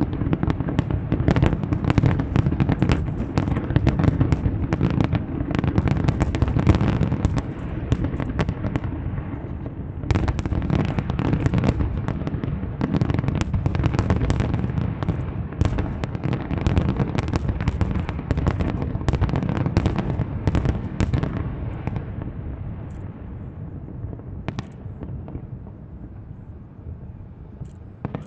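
Fireworks display: a dense, rapid run of bangs and crackles over a deep rolling rumble, thinning out after about twenty seconds into a fading rumble with a few last isolated pops.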